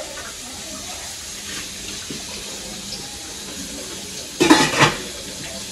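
A steady watery hiss from pots heating on a gas stove. About four and a half seconds in, a short metallic clatter as a stainless-steel pot lid is handled.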